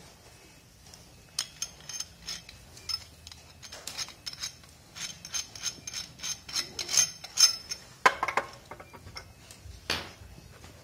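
Irregular metallic clicking and clinking of a pipe wrench being adjusted and handled, then set onto a metal hose-barb nipple to screw it into a fuel pump outlet, with a couple of louder knocks near the end.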